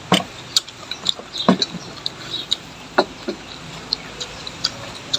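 Irregular light clicks and taps of chopsticks against stainless steel bowls and plates while eating.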